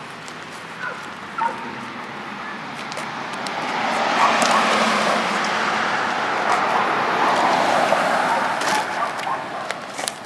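A vehicle passing on the road: tyre and engine noise swelling up a few seconds in, holding for several seconds, then fading away.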